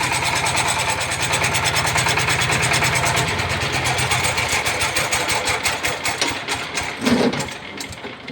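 Single-cylinder diesel engine of an 18 hp walking tractor running steadily with a fast, even chugging beat, dying away over the last couple of seconds.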